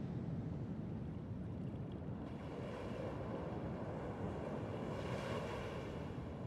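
Low, rumbling dark ambient drone. Faint high sustained tones come in about two seconds in, and a hissing swell rises near five seconds.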